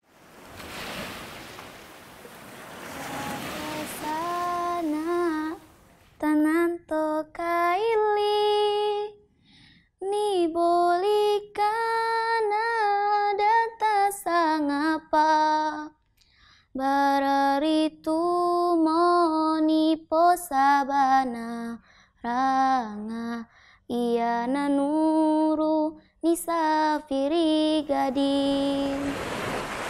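Sea waves washing on a shore, then a solo female voice singing a slow, unaccompanied melody with long held notes and short silent breaks between phrases, the Indonesian lyric shown as subtitles. The wash of the surf returns near the end.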